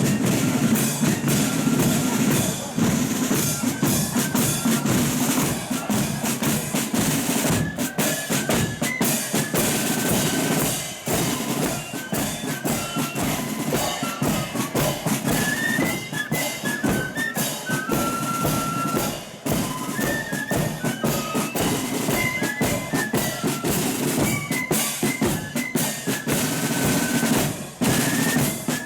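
Marching flute band playing: flutes carry a melody over rapid snare drum rolls and a bass drum beat.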